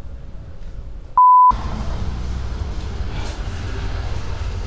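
A short censor bleep: one pure, steady beep of about a third of a second, a little over a second in, and the loudest sound here. A steady low hum of background noise follows it.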